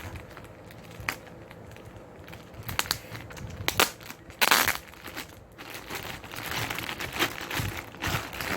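Parcel packaging being opened by hand: crinkling and crackling with scattered sharp clicks, and a louder burst about four and a half seconds in.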